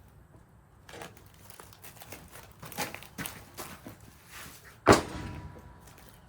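Footsteps with light scuffs and knocks, then a single heavy thud about five seconds in as a thick wooden slab is set down across a support.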